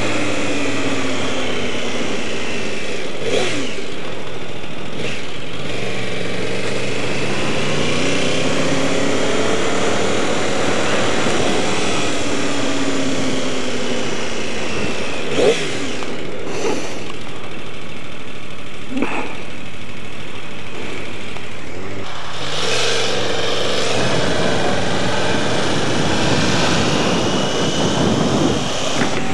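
Yamaha R1 sport bike's inline-four engine heard on board, revving and pulling through the gears, its pitch climbing and dropping back again and again, over steady wind rush.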